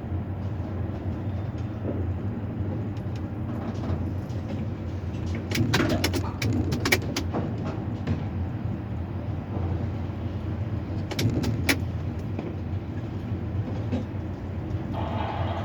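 Steady low machine hum inside a tower crane cab, with a cluster of sharp clicks and knocks about six seconds in and again about eleven seconds in.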